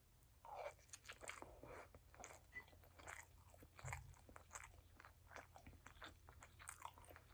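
Quiet, close-up chewing of crunchy food: a run of irregular crunches and mouth sounds.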